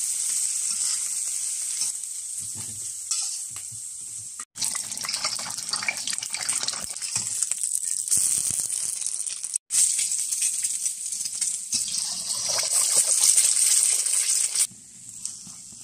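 Hot oil sizzling in a wok, first under stir-fried pork with green peppers, then under eggs frying as they are turned with a spatula. The sizzle breaks off twice and drops quieter near the end.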